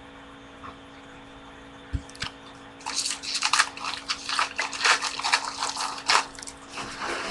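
Plastic wrapper of a baseball card pack crinkling and tearing as it is pulled open by hand: a rapid run of crackles from about three seconds in to near the end, after a single soft thump about two seconds in.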